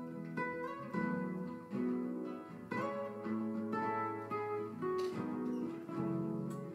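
Acoustic-electric guitar played solo: plucked single notes and chords in a slow melody, with a sharper accented strum about five seconds in.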